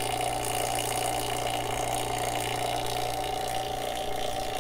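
Small electric vacuum pump running steadily with an even hum, evacuating the hoses and refrigerant recovery tank of air and moisture.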